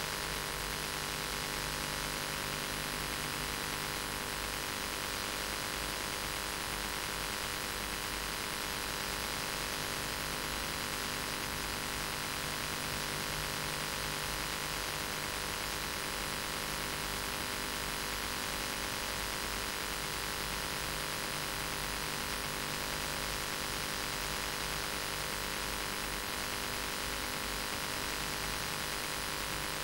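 Steady hiss with an electrical mains hum and no other sound: the noise floor of an old analogue videotape recording.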